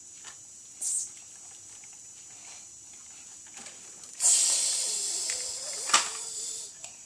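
A high hissing noise: a short burst about a second in, then a louder one lasting about two and a half seconds from about four seconds in, with a sharp click near its end.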